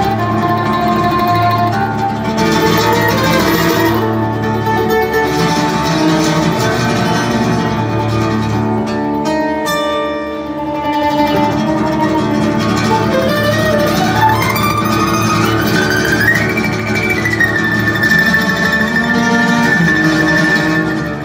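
Acoustic guitar and F-style mandolin playing together live in a bluegrass-style arrangement. In the second half, a high line slides steadily upward over a few seconds and ends on a long held note.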